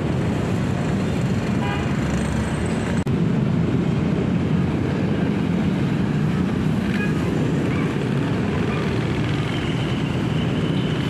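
Steady outdoor street noise with a low rumble like passing road traffic, with a brief dropout about three seconds in.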